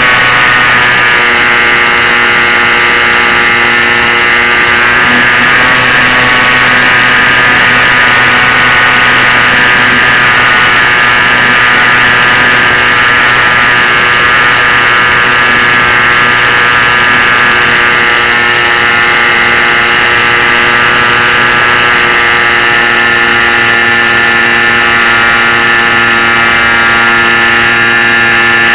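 HobbyZone Champ RC plane's small electric motor and propeller running with a steady, loud buzz, heard up close through the onboard keychain camera, the pitch shifting only slightly with throttle.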